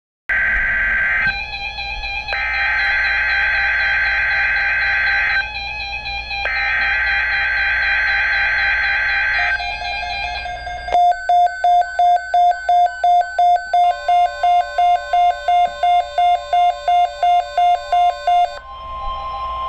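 Weather radio receiving an Emergency Alert System activation: three bursts of the warbling digital SAME header data tone, then about 11 seconds in the receiver's own pulsed alert beeping at about two and a half beeps a second, and just before the end the steady weather-radio attention tone begins.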